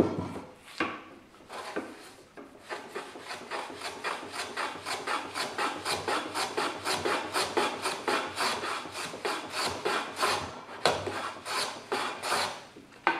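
Hand plane run on its side along a shooting board, shaving the end grain of a board in repeated short strokes. A few separate strokes first, then a fast, even rhythm of about four strokes a second that eases off near the end.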